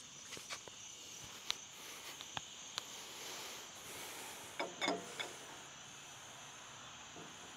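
Faint scattered clicks and, about five seconds in, a short cluster of light knocks as a hydraulic engine hoist is worked to lower a truck cab onto blocks, over a steady high hiss.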